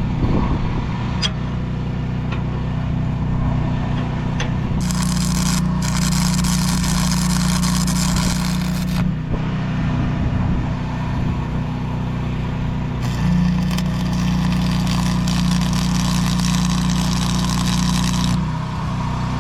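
Arc welding reinforcing plates onto a steel land plane: two welds of about four and five seconds, the arc crackling steadily while it burns, over a constant low hum.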